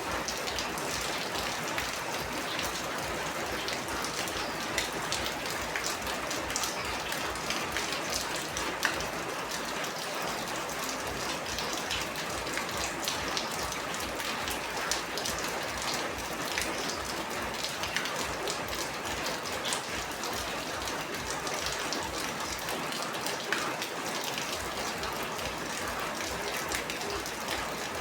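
Steady heavy rain, a dense even hiss with many individual drops pattering on a surface.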